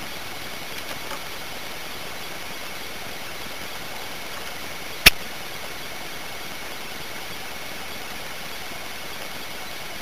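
Steady hiss with a faint high whine from a tiny gum-pack-sized video recorder's microphone, broken once about five seconds in by a single sharp click.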